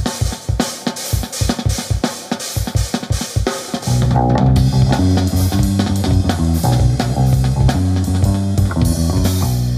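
A band jamming loudly. A drum kit plays a steady kick-and-snare beat alone, then about four seconds in a heavy, low-pitched guitar part comes in over it. Both cut off together just before the end.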